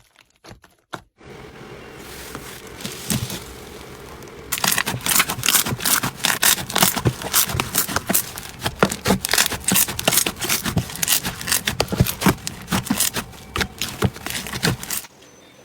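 Slime being squished and pressed by hand, giving a busy, irregular crackle of sharp little clicks. It starts as a softer rustle, grows dense and loud about four seconds in, and stops suddenly near the end.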